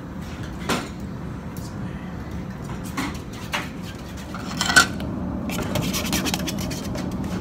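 Clinks, knocks and rubbing from a plastic mixing cup and paint tins being handled on a workbench, with the sharpest knock about five seconds in and more clatter near the end, over a steady low hum.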